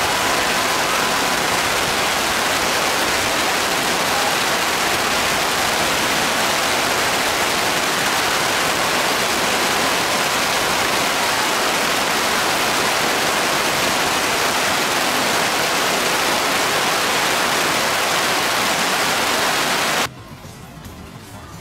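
Heavy rain: a loud, steady hiss of downpour on and around the microphone. It cuts off abruptly near the end, leaving a much quieter sound.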